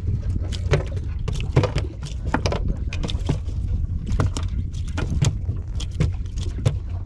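Irregular sharp clicks and taps, a couple a second, from metal fishing pliers on a coiled lanyard and a freshly hooked small fish on a plastic cooler lid being handled, over a steady low rumble.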